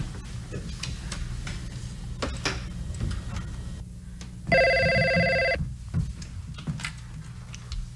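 Corded desk telephone ringing once, a single steady ring about a second long, partway through.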